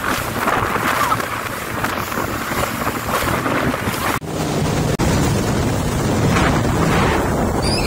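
Wind buffeting the microphone over rushing, splashing water from a jet ski riding at speed over choppy sea. About four seconds in the sound cuts abruptly to a jet ski running close by, with a low steady engine drone under the wind and spray.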